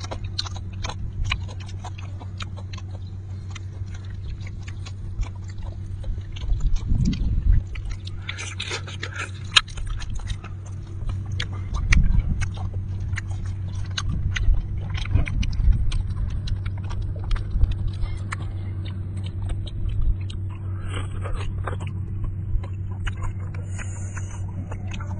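Close-miked chewing and lip-smacking as cooked beef from a cow's head is eaten by hand: many short wet clicks and smacks. A steady low hum runs underneath.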